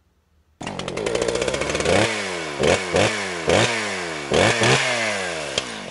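An engine starts up about half a second in and is then revved in a series of quick throttle blips, each one falling away in pitch.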